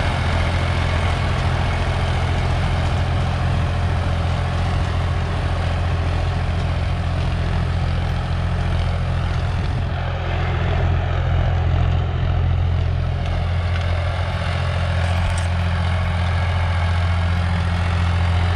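Diesel tractor engine running steadily under load, a low drone that holds one pitch throughout.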